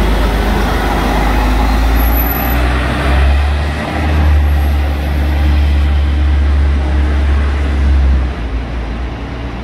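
Scania L113CRL city bus engine running with a deep, steady rumble that shifts about four seconds in and eases off near the end.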